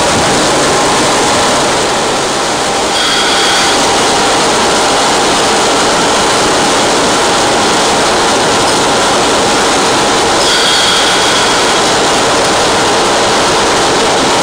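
A 1951 GE Bo-Bo 750 hp diesel locomotive running along the line, heard from inside its cab: a steady, loud mix of engine and wheel-on-rail noise. A brief high squeal comes about three seconds in and again about ten seconds in.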